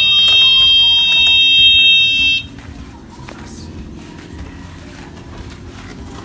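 Theft-alarm buzzer sounding a loud, steady, high-pitched tone, set off by the shock sensor when the motorbike is moved. It cuts off suddenly about two seconds in, leaving a quieter low rumble.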